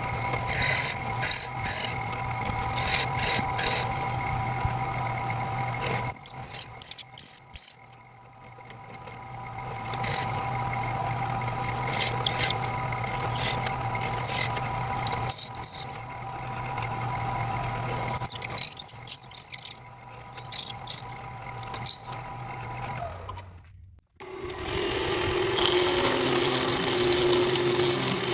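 An electric power tool's motor running steadily, with intermittent squeaking and scraping of a workpiece against it. Near the end the motor winds down and stops, and a different steady hum follows.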